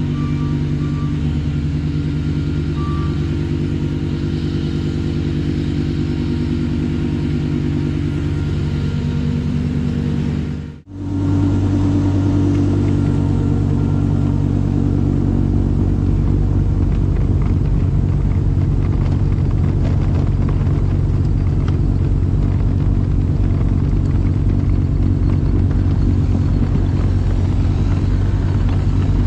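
Trackless MT6 tractor's engine running steadily while its front snowblower throws snow, a hum of steady tones. About eleven seconds in the sound drops out for a moment and comes back with a stronger low hum.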